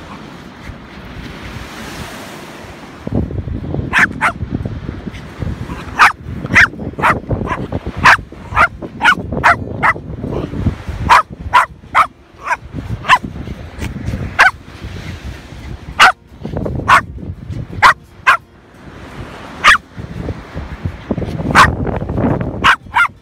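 Shetland sheepdog barking over and over in short, sharp barks, starting about three seconds in and going on with brief pauses, over a steady low rumble.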